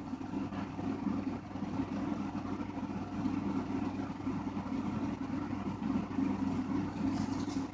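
Steady low machine hum with no breaks.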